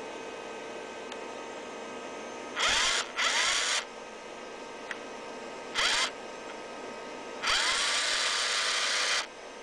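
Small electric motor of the NIKKEY MIG-220 welder, most likely its wire-feed motor, run in four short bursts with a hiss, the last the longest. Each burst starts with a rising whine as the motor spins up, then holds steady.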